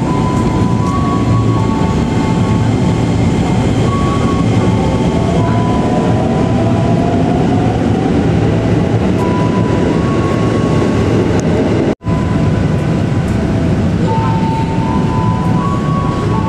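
Loud steady rumble of a train at the station, with short high squealing tones now and then and a slowly rising tone in the middle.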